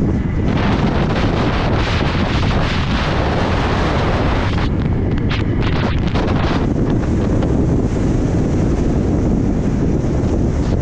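Heavy wind buffeting on the microphone during a fast downhill run at about 25 mph, over the steady roll of wheels on asphalt. A harsher hiss rides on top for the first few seconds and again briefly just past the middle.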